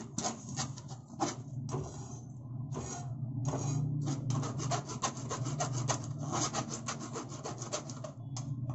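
Wooden spatula scraping and pressing thick ground tomato-cashew gravy through a steel mesh strainer: quick rhythmic rubbing strokes, several a second, with a couple of brief pauses about two to three seconds in.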